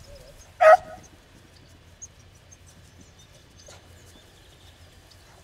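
A beagle gives one short, high bark about a second in while working a rabbit's scent trail.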